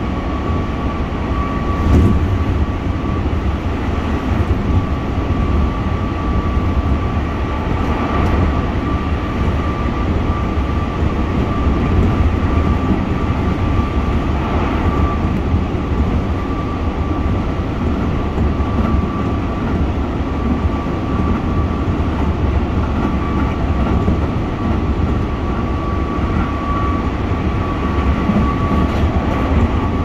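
Keihan commuter train running at speed, heard from inside the passenger car: a steady running rumble with a thin constant whine above it and an occasional knock from the wheels, the loudest about two seconds in.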